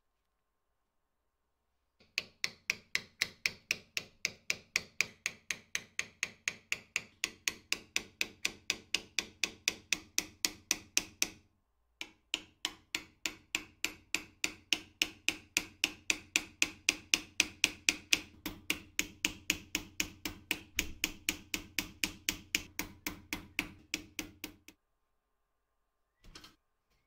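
Rapid, steady hammer taps, about four a second, knocking out the rivet pins of an old Solingen pocket knife to take it apart. The taps come in two long runs with a short break about halfway, then a single faint knock near the end.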